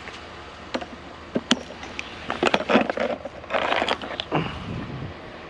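Handling of a discarded lamp and other curbside scrap: scattered clicks and knocks, with two short bursts of scraping and rattling around the middle.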